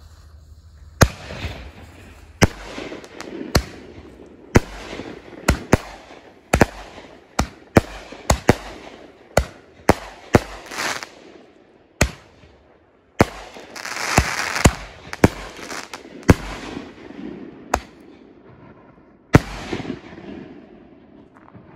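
Consumer aerial firework shells fired one after another from a fused rack: a rapid series of about twenty sharp bangs, as shells launch and break overhead, with crackling between them. The crackle is densest about two-thirds of the way through.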